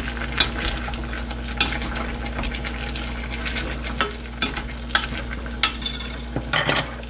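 Wooden spoon stirring a simmering soy-sauce braise in a stainless-steel saucepan, with frequent short knocks and scrapes against the pot over a steady bubbling hiss.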